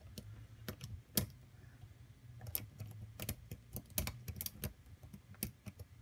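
Lock pick and tension wrench working the pins of a five-pin SC-keyway lock cylinder, single-pin picking: faint, irregular small metallic clicks and ticks as pins are lifted and set.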